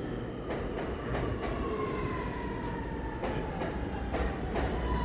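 Subway train running slowly with a low rumble, its electric motor whine gliding down in pitch as it slows, and irregular sharp clicks of wheels over rail joints.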